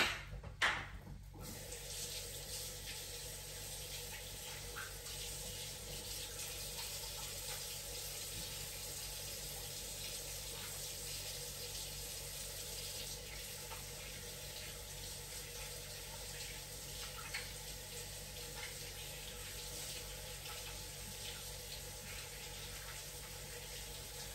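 A couple of knocks in the first second, then a kitchen tap running steadily into a sink as hands are washed under it.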